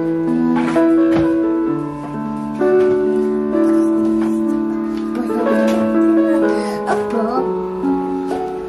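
Background music with slow, held keyboard notes.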